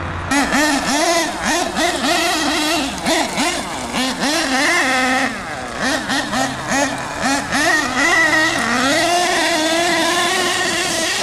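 Small two-stroke engine of a large-scale RC monster truck revving up and down in quick repeated bursts, then held at higher, steadier revs in the second half.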